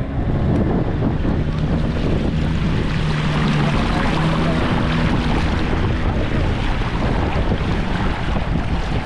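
Motor of a small boat running steadily as it moves across calm marsh water, with wind buffeting the microphone.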